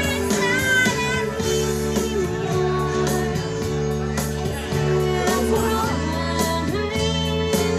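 Karaoke: a woman singing into a handheld microphone over a guitar backing track.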